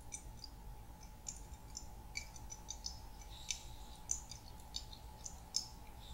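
Olive oil glugging out of a glass bottle as it is drizzled over a tray of food: faint, irregular small high clicks and ticks over a faint steady hum.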